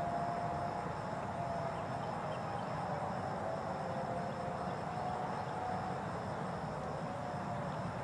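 Distant Federal Signal outdoor warning sirens sounding the alert signal: several long, steady tones at slightly different pitches that drift slowly up and down, over a steady background hiss.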